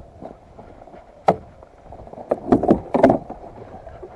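The hood of a 1991 Arctic Cat Jag snowmobile being unlatched and lifted: one sharp click about a second in, then a quick cluster of clunks and rattles from the latches and the plastic hood.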